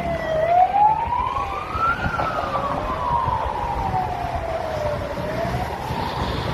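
Emergency vehicle siren in a slow wail, its pitch rising quickly and falling slowly over a few seconds each time, over a low rumble of road traffic.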